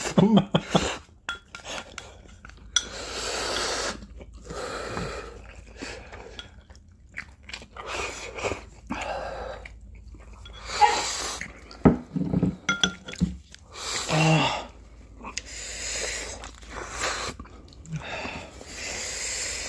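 Slurping and chewing of spicy instant ramen noodles, with repeated heavy breaths through the mouth against the chili burn.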